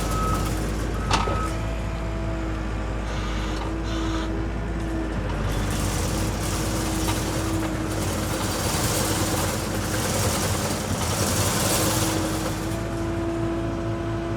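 Compact track loader's diesel engine running steadily while the machine works, its reverse alarm beeping for the first second or so. From about six to twelve seconds in, a rushing noise swells over the engine.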